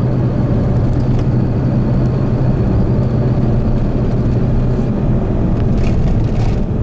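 A car driving at highway speed: steady engine and road noise with a constant low hum.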